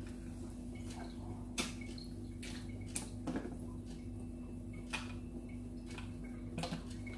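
Plastic screw-on top of a personal blender cup being twisted open, giving a handful of short sharp clicks spread a second or so apart over a steady low hum.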